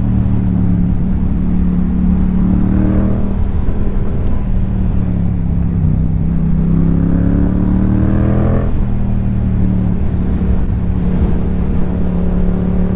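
2022 Yamaha YZF-R7's parallel-twin engine through a Yoshimura R77 carbon exhaust, pulling under throttle on the move. The pitch climbs several times, the longest climb about two-thirds of the way in ending in a sharp drop at a gear change, over a low rumble of wind.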